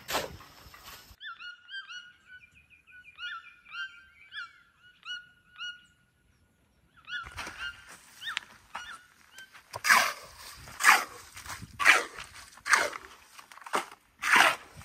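Birds calling: it opens with a short thump, then a run of short chirping notes for several seconds, and after a brief gap a series of loud harsh calls about once a second, the loudest near the end.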